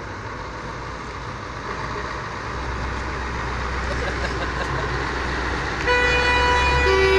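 Scania truck tractor units driving past, their diesel engines rumbling louder as they come close. About six seconds in, a truck horn starts blowing a steady note, and a second, lower horn joins just before the end.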